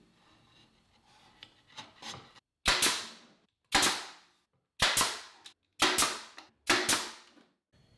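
Nail gun firing five times, about a second apart, driving 1¼-inch nails through a wooden drawer slide into the drawer runner. Light handling of the wood comes before the first shot.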